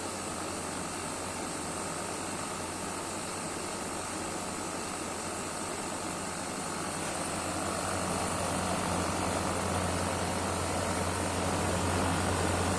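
Window air conditioner running after an R410a refrigerant recharge, with a steady compressor hum and fan noise while its pressures settle. It grows somewhat louder from about halfway through.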